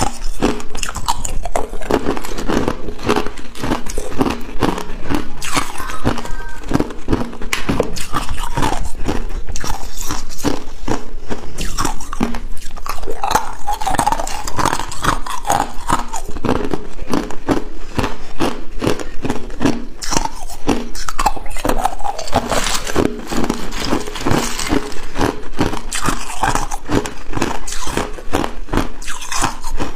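Hard clear ice cubes being bitten and chewed, a rapid, continuous run of crunches and cracks.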